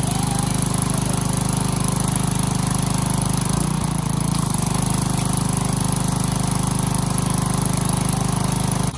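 Gasoline pressure washer's small engine running at a steady speed.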